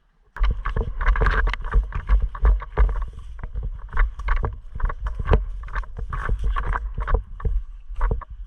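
Low rumbling wind and handling noise on a GoPro action camera, full of irregular knocks and rattles. It starts suddenly a little under half a second in.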